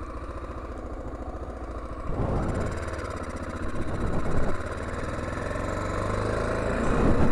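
Honda XL600R's 589cc single-cylinder engine running at low revs, then opened up about two seconds in and again around four seconds, the revs building toward the end as the bike moves off along the track.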